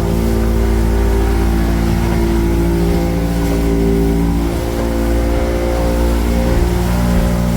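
Boat's outboard motor running steadily at cruising speed, a strong low rumble under a steady engine note that drifts slightly in pitch now and then.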